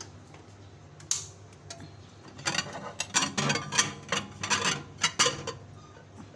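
Glass dish clinking and knocking against the glass turntable of a microwave oven as it is lifted out. One sharp click about a second in, then a quick run of clinks and knocks for about three seconds.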